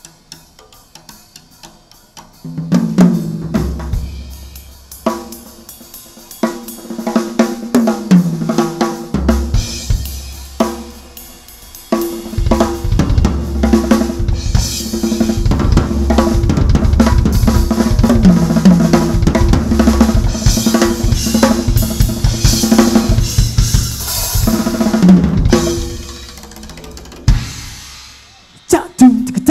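Drum kit played live: snare, bass drum, toms, hi-hat and cymbals. After a soft opening it breaks into loud, dense strokes about two and a half seconds in, keeps up fast fills, and dies down near the end.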